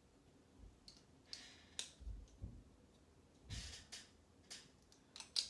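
Faint clicks and short rustles of plastic Lego pieces being handled and pressed onto a model, scattered about a second apart, with the sharpest click near the end.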